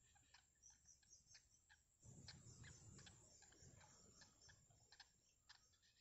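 Faint, irregular ticking clicks, several a second, joined about two seconds in by a louder rustle that lasts a couple of seconds.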